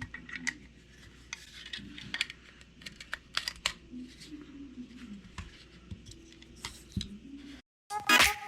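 230-grain .45 ACP cartridges being pressed one at a time into a Glock magazine: irregular sharp clicks and metallic scrapes. Music with a beat cuts in near the end.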